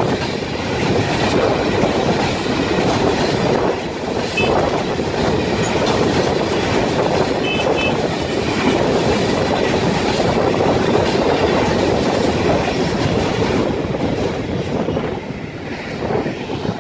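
Long freight train of loaded open-top wagons rolling past close below: a steady heavy rumble and the clatter of wheels over the rail joints. A couple of brief high squeals come about four and seven and a half seconds in, and the rumble eases slightly near the end.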